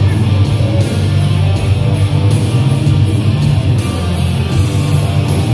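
Loud heavy rock music with electric guitar, playing steadily throughout.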